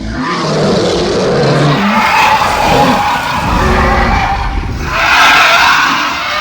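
Animated giant dinosaur's roar sound effect: one long, rough, growling roar that grows louder and brighter near the end.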